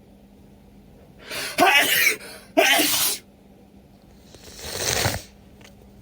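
A person with a head cold sneezing twice in quick succession, the first with a short 'ah' build-up, then a long, rising noisy sniff through the congested nose that cuts off sharply.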